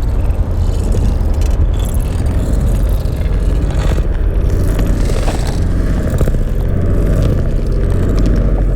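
Dark cinematic ambient drone sample: a loud, steady low rumble with a gritty, scraping texture over it and a couple of brief crackles near the middle.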